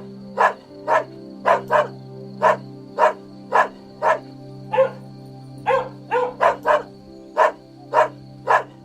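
A dog barking over and over in short, sharp barks, about two a second, with a quicker run of barks around six seconds in.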